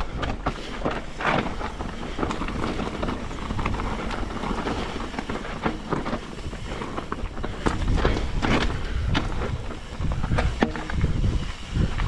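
Mountain bike descending a rocky trail: tyres crunching over rock and loose gravel, with frequent knocks and rattles from the bike over rough ground, and wind noise on the microphone. The low rumble grows heavier about two-thirds of the way in.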